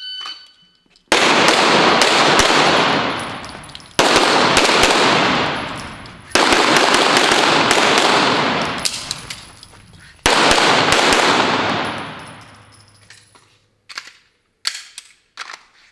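A shot timer beeps, then a 9mm pistol fires four fast strings of shots starting about a second in, each string ringing on and dying away slowly in the enclosed range. A few sharp clicks of the pistol being handled come near the end.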